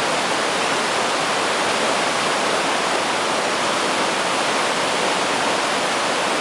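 Whitewater rapids of a swollen river rushing over boulders: a steady, unbroken rush of churning water.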